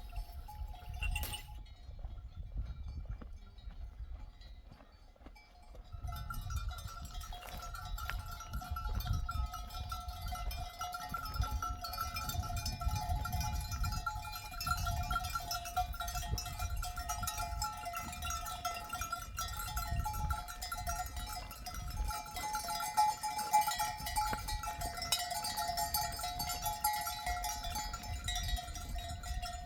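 Many bells on a flock of sheep clanking and tinkling together without a break, starting about six seconds in.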